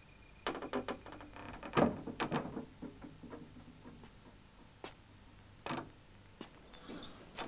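A scattering of short, sharp knocks and clicks: a quick run of them in the first couple of seconds, then single ones about once a second.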